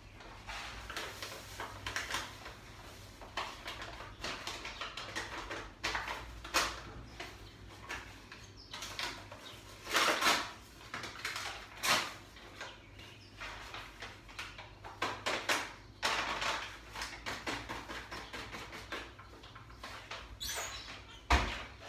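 Paper bag of corn flour rustling and crinkling in irregular bursts as it is handled and shaken over a plastic bowl. A short sharp knock comes near the end.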